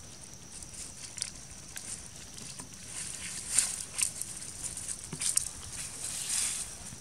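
Dry fallen leaves crackling and rustling under a long-tailed macaque and her clinging infant as they walk, in short irregular crunches that grow busier in the second half.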